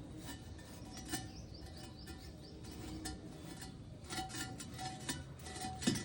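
Quiet background music made of short held notes, with scattered sharp clicks and ticks and a louder knock near the end.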